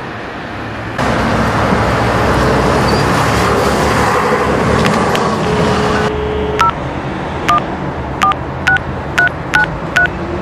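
Payphone keypad being dialled: a brief steady tone, then seven short dual-tone beeps as the keys are pressed, in the second half. Before that, a loud rushing noise fills the first half.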